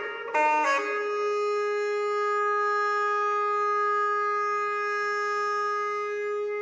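Background music: a solo wind-instrument melody, a few quick notes and then one long held note.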